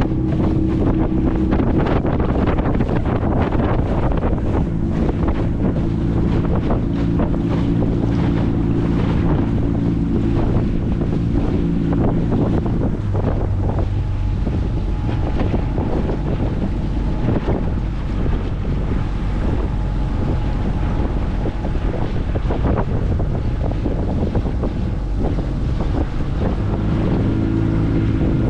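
Small outboard motor running steadily on a skiff under way, with wind gusting across the microphone throughout. About halfway through, the engine note shifts lower and thinner, and it comes back up near the end.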